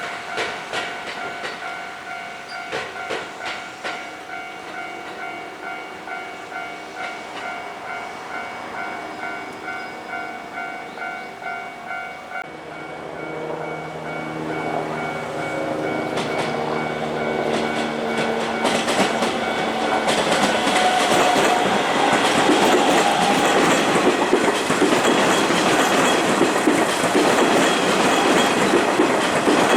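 Level-crossing warning bell ringing in a steady repeating pattern, which cuts off about twelve seconds in. A Kintetsu electric train then approaches with a steady motor whine and passes close by, its wheels clattering over the rail joints and growing loudest in the second half.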